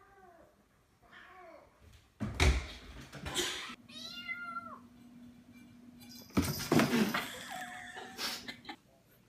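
A cat meowing several times: two short faint meows, then a longer clear meow about four seconds in. Two loud thumps break in, one about two seconds in and one about six seconds in.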